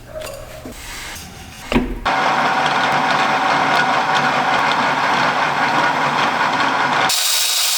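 A single knock, then a power tool starts running steadily about two seconds in.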